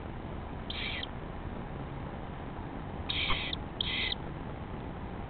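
Fledgling woodpecker giving three short, high-pitched squeaks: one about a second in, then two close together just after three seconds.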